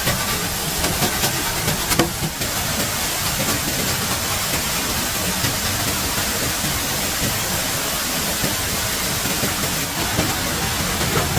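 Steady rushing hiss of water, with a sharp knock about two seconds in.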